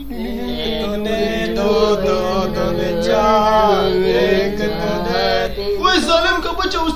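Chanting voice over a steady low drone, the melody bending up and down; near the end it gives way to quicker, speech-like vocal sounds.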